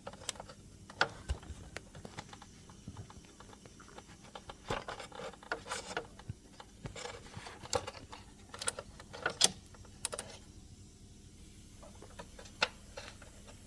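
Irregular light clicks and knocks of small hard objects being handled, a dozen or more scattered sharp taps with quiet gaps between them.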